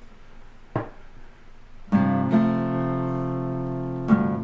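Acoustic guitar strummed: after a light tap about a second in, a chord is struck about two seconds in and rings on, then strummed again near the end.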